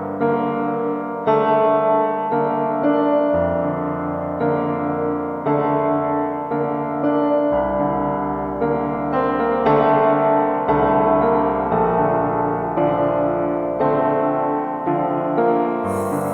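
Background piano music: slow, sustained chords changing every second or two.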